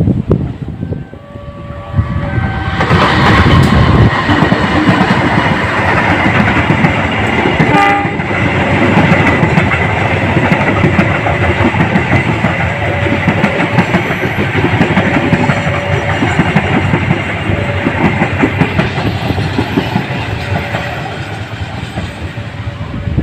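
Indonesian CC206 diesel locomotive passing with its train, wheels clattering over the rail joints while its single-trumpet horn sounds a steady deep 'baung' note, a horn modified to sound like a CC201's rather than the usual CC206 'puong'. The sound swells about two seconds in and stays loud.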